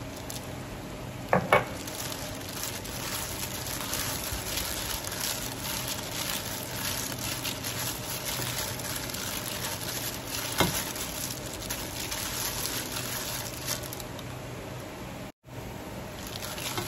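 Plastic-gloved hand tossing and rubbing cubes of pomelo rind with tapioca starch in a stainless steel bowl: a steady crackly rustle of glove and starch, with two louder knocks, about a second and a half in and again near ten seconds.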